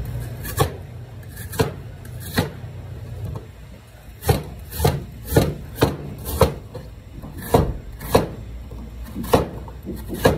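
Knife chopping apple on a cutting board: about a dozen separate sharp strokes at an uneven pace, coming quicker in the middle.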